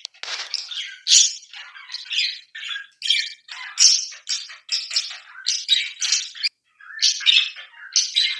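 Pet parrots squawking and chirping in a steady run of short, harsh calls, about two a second.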